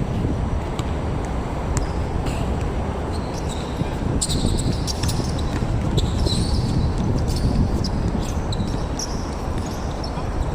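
Wind buffeting the microphone as a steady low rumble, with a basketball bouncing on the court and short high squeaks from about four seconds in.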